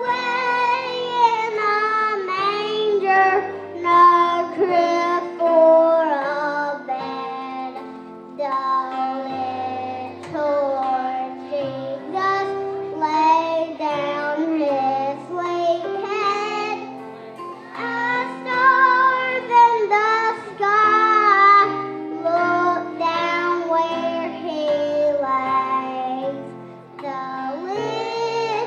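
A group of young children singing a song over instrumental accompaniment.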